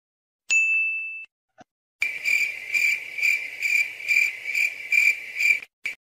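A short bright ding about half a second in. From about two seconds in, crickets chirp steadily at about two or three chirps a second and stop just before the end: the stock 'crickets' sound effect.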